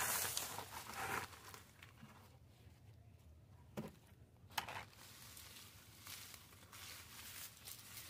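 Soil, dry leaves and twigs tipped from a container onto a compost heap, a rustling pour that dies away after about a second. Then two sharp clicks and faint rustling of dry plant debris being moved.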